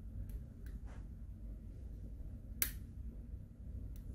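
Metal tweezer tips clicking and tapping against the plastic midframe and speaker module of an opened smartphone: a few faint clicks in the first second, then a sharper click about two and a half seconds in, over a low handling rumble.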